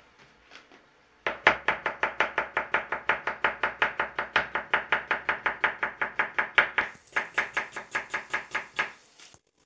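Kitchen knife chopping a cucumber into rounds on a plastic cutting board: a fast, even run of knife strikes, about six or seven a second. It starts about a second in, breaks off briefly, then carries on until shortly before the end.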